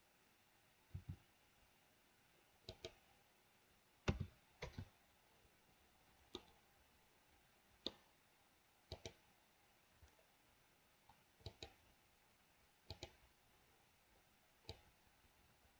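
Faint, scattered clicks of a computer mouse and keyboard being worked, about a dozen over the stretch, many coming in quick pairs.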